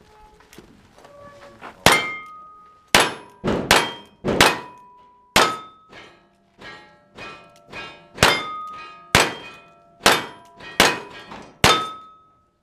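A string of about ten revolver shots at an irregular pace, each followed by the ring of a struck steel target, with fainter knocks in between.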